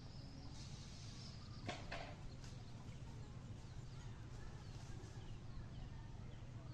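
Faint outdoor ambience: a steady low hum with faint high chirps scattered through, and a couple of sharp clicks about two seconds in.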